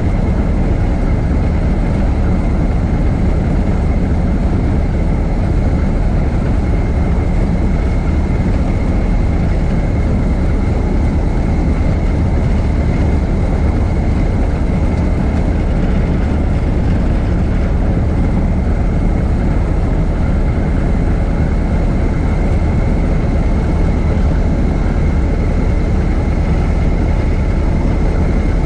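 1926 Ford Model T's four-cylinder engine running steadily as the car drives along, with a low rumble and a thin, steady high whine.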